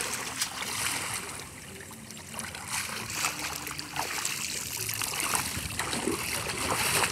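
Water splashing and trickling as a wet cast net is hauled through shallow water and lifted out, water streaming off the mesh.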